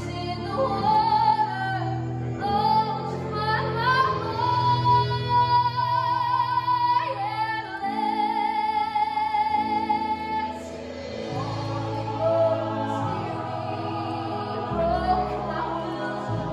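A woman singing a solo song from a stage musical, with long held notes sung with vibrato, over live pit-band accompaniment.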